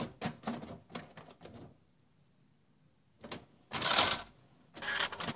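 Inkjet printer starting a print job: a run of mechanical clicks and ticks, a short pause, then a loud whirring clatter about four seconds in as its front cover and output tray open. A fast, busy rattle of the paper-feed mechanism starts near the end.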